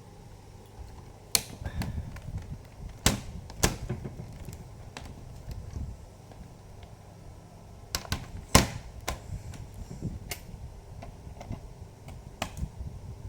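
Irregular sharp clicks and knocks of a laptop's plastic case and parts being handled by hand, a few of them loud.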